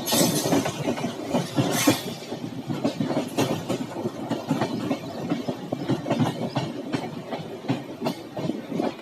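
Moving express passenger train: wheels clattering over the rails, with a dense, irregular stream of knocks and rattles and two louder bursts of clatter near the start and about two seconds in.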